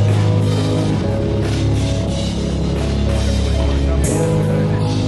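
Background rock music: drums and guitar over a heavy, held bass line that shifts note about a second in and again near the end.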